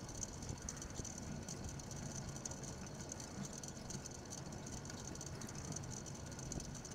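Steady wind and road noise picked up by a bicycle-mounted camera while riding, with light rattling from the bike.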